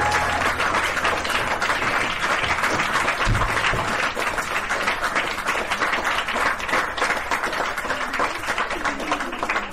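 Applause: many people clapping steadily, with the tail of a music track ending about half a second in.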